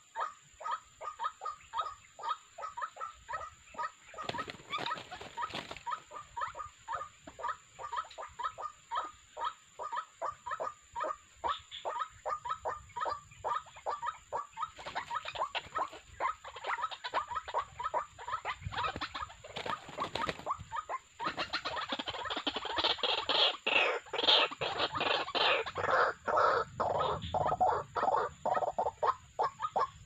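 White-breasted waterhens calling, a steady run of short croaking 'wak wak' notes at about three a second; a few seconds past the middle the calls grow louder and fuller as more voices join, then ease off near the end.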